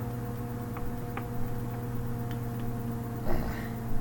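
Steady low electrical hum with a few faint clicks, and a short soft noise near the end.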